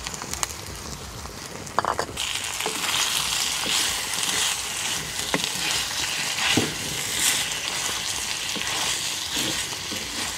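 Snail meat frying in hot oil with onions in a pot, stirred with a wooden spatula. The sizzling grows much louder about two seconds in as the meat hits the oil, with scrapes and knocks of the spatula through it.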